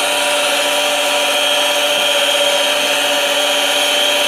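Sanyo jet water pump's electric motor running steadily under a test run, a continuous hum with a steady high whine, while its resealed pressure switch is checked for leaks.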